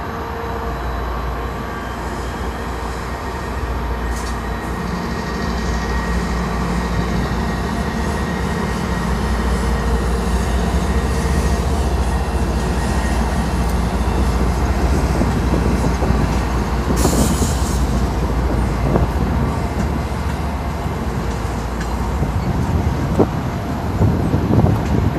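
Train running, a steady rumble with faint steady tones that grows a little louder over the first half, and a brief hiss about seventeen seconds in.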